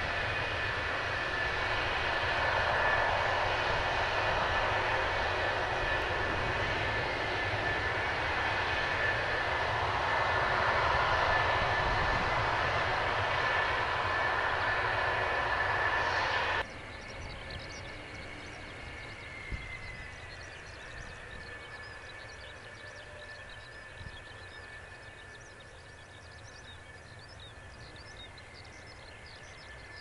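McDonnell Douglas F-4EJ Kai Phantom II's J79 turbojets running at taxi power, a steady high whine over a loud rush. A little past halfway it cuts suddenly to a fainter, more distant jet whine.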